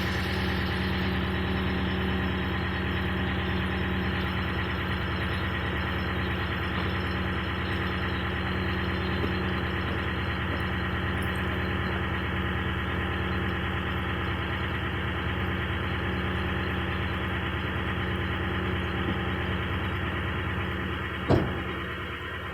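Toyota Tundra pickup's engine running steadily, with a single sharp pop about 21 seconds in. The pop is the kind of popping the owner relates to the truck's Air Lift air suspension.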